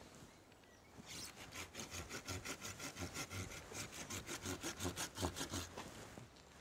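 A hand saw cutting through a green sweet chestnut shoot close to the trunk, in a run of quick, even back-and-forth strokes. The strokes start about a second in and stop near the end.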